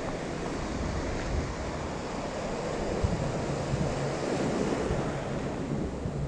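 Ocean surf breaking and washing through shallow water around the angler, with wind buffeting the microphone.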